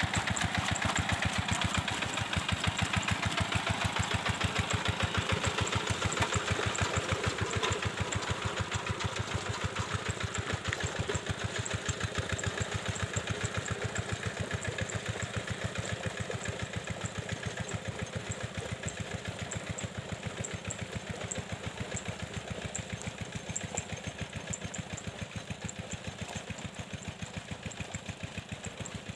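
Rice-paddy tractor's engine running steadily with a fast, even pulse, slowly growing fainter.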